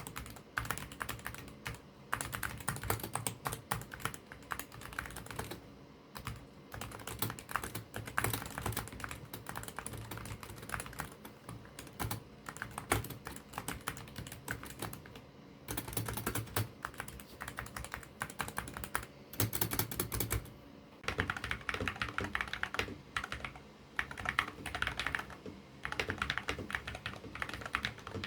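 Fast typing on a gaming keyboard: a dense run of key clacks with a few brief pauses.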